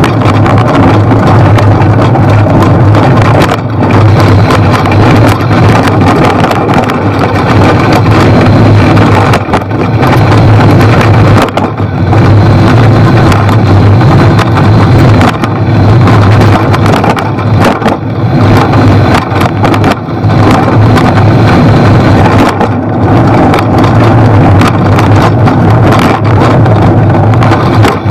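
Bicycle rolling fast downhill over a leaf-covered dirt trail: loud, steady rushing noise from the tyres and the wind on the camera's microphone, with brief knocks and rattles over bumps.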